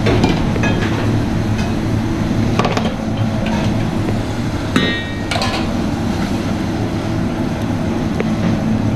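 Commercial kitchen sound: a steady low ventilation hum with scattered knocks and clinks of pans and utensils. One ringing metal clink comes about five seconds in.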